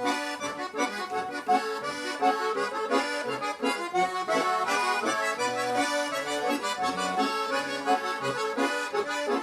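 Russian garmon (button accordion) playing a folk melody with bass-note accompaniment underneath: the instrumental introduction to a song, before the singing starts.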